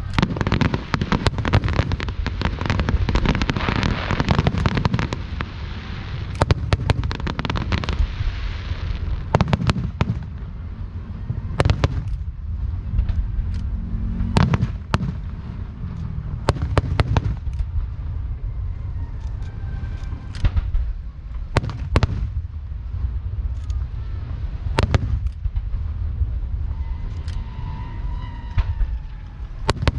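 Aerial fireworks going off. A dense crackling barrage runs for about the first nine seconds, then single shells burst with sharp bangs every second or two.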